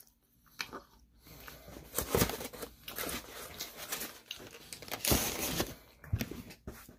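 Crunching and chewing of crispy Korean fried chicken close to the microphone, in irregular crackles with two louder crunchy bites, about two and five seconds in.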